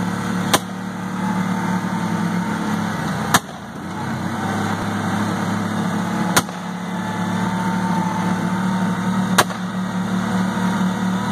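Four single handgun shots about three seconds apart, over the steady running of a utility side-by-side's engine as it drives slowly.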